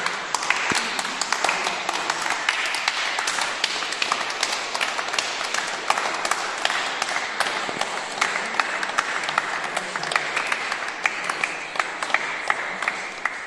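Applause: a group of people clapping their hands, steady and dense, tailing off near the end.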